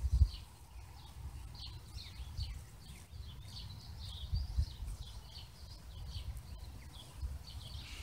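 Small birds chirping in quick, short high notes, over and over, with a low rumble underneath.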